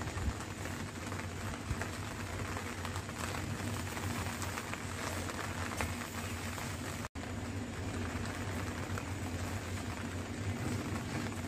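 Steady rain falling, an even hiss with faint scattered drop ticks, cutting out for an instant about seven seconds in.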